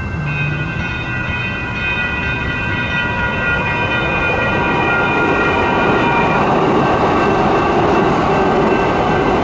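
Electronic crossing bell ringing steadily while a Siemens Duewag U2A light rail train approaches and passes over the crossing. Its wheel and running noise grow louder from about halfway and are loudest near the end.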